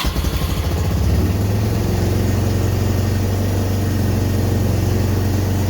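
2006 Yamaha Bruin 250 ATV's single-cylinder four-stroke engine idling steadily after catching, running again once the loose battery terminal makes contact.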